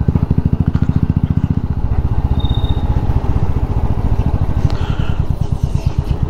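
Motorcycle engine running as the bike is ridden, with a steady, even beat of exhaust pulses.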